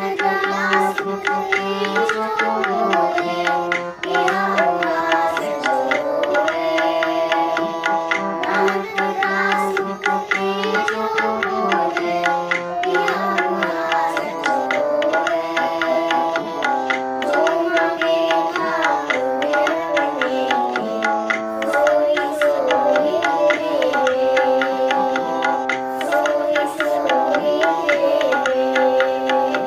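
Children singing a Sikh shabad (devotional hymn) to tabla and a steady sustained accompaniment, the melody rising and falling in long phrases.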